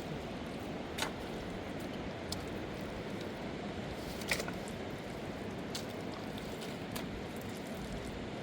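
Steady rush of a fast-flowing river, with a few short sharp clicks or knocks scattered through it.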